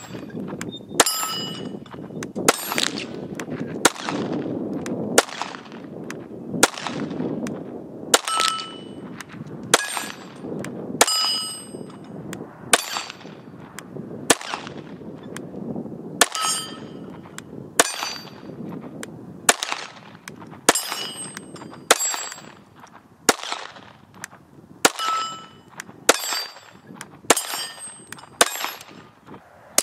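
.22 LR semi-automatic pistol fired in a steady string, about one shot a second. Many of the sharp cracks are followed by the short ringing ping of a struck steel target.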